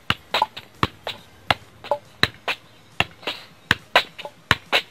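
A football being juggled on the foot: a run of sharp, short taps as the shoe strikes the ball, about three a second at uneven spacing.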